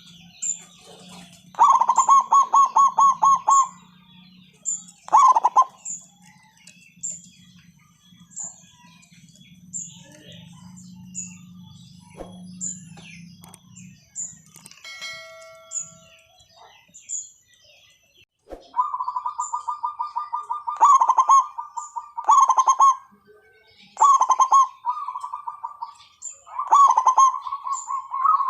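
Zebra dove (perkutut) calling in rapid trilled, rattling coo phrases. There is a burst about two seconds in and another around five seconds, then near-continuous phrases in the last third. Small high chirps from another bird repeat throughout.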